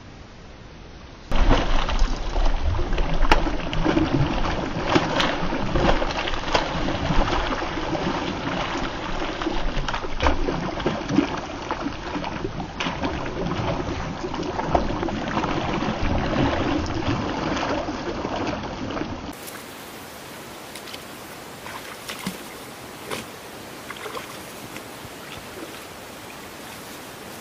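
A hooked catfish thrashing and splashing in shallow water, a loud, churning run of splashes with many sharp slaps. About nineteen seconds in it gives way to a quieter steady hiss with a few small splashes.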